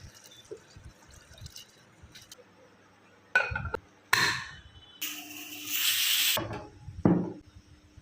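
Kitchen cooking sounds: two short clinks, then liquid poured for about a second and a half, and a knock near the end.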